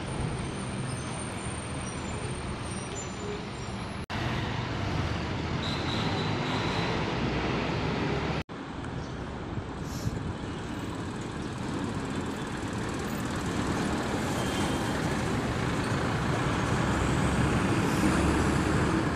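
Road traffic: buses and trucks passing close by, engines rumbling with tyre and road noise. It grows louder toward the end as an MSRTC bus passes nearest. The sound drops out briefly twice, about four and eight and a half seconds in.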